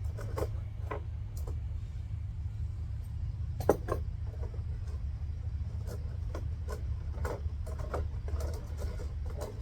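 Scattered light clicks and knocks, like gear being handled, over a steady low rumble, with one sharper knock a little under four seconds in.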